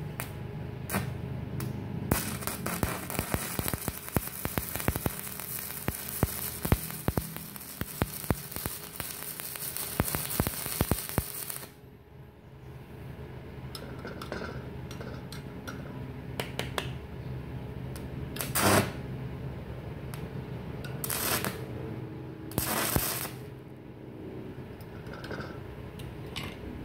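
Stick-welding arc from an ES 1200 inverter welder, crackling and spitting as the electrode burns along a steel plate for about the first twelve seconds, then cutting off abruptly as the arc is broken. A few short knocks follow later.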